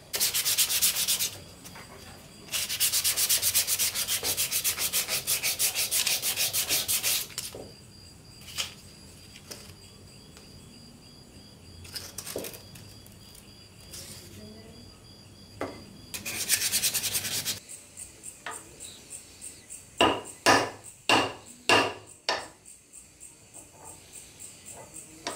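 Three stretches of fast back-and-forth rubbing or sanding strokes, hissy and scratchy, one of them about five seconds long. These are followed by a run of sharp metallic taps, several loud ringing ones close together about two thirds of the way through.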